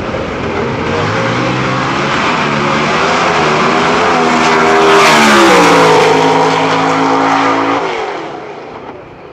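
A 10.5-class drag race car accelerating hard down the strip, its engine note climbing in pitch, then dropping as the loudest pass goes by. The engine sound stops about eight seconds in.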